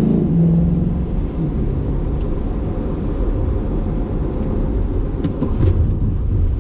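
A Corvette C8's 6.2-litre V8 pulling hard, heard inside the cabin: its note rises slightly, then eases off about a second in, leaving a steady low rumble of tyre and road noise as the car runs toward the braking zone at about 35 mph.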